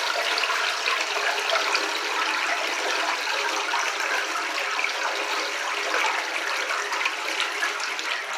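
Toilet flushing: a steady rush of water from the tank through the bowl. It is a long, large flush, which the owner reckons at about 3.5 gallons.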